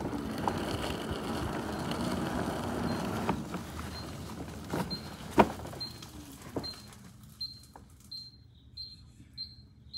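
Segway Ninebot Gokart Pro electric kart driving, its motor and tyres making a steady noise that fades after the first few seconds, with a sharp knock about five seconds in. From about halfway, a short high beep repeats nearly twice a second and grows clearer.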